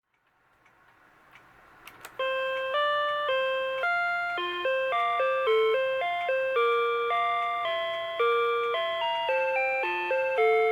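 Rhythm Watch "Weektime" melody alarm clock sounding its alarm: an electronic tune of single beeping notes, each struck and fading in a steady pulse, starting about two seconds in just after a faint click.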